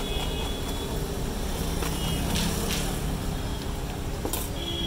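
Steady street traffic noise, with a few short rustling scrapes about halfway through and near the end as a spoon stirs bhel in a paper cone.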